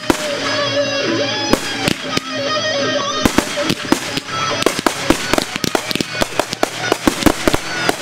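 Aerial fireworks firing in a rapid barrage: a dense run of sharp bangs and crackles, several a second, from about three seconds in. Before that, guitar music plays with a few scattered firework bangs.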